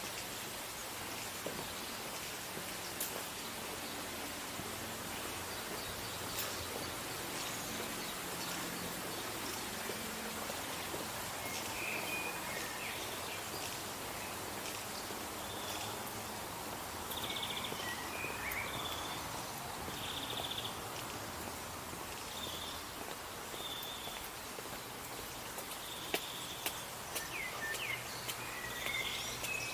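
Steady hiss of splashing water from a garden fountain, with small birds chirping from about a third of the way in, a short repeated chirp coming more often towards the end.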